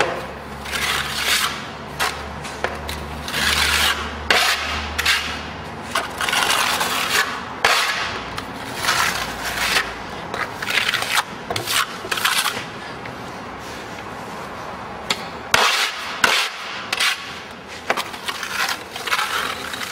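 Plasterer's trowel scraping a very thin, tight coat of decorative concrete render onto a rough block wall in repeated sweeping strokes, with a few sharp knocks between strokes.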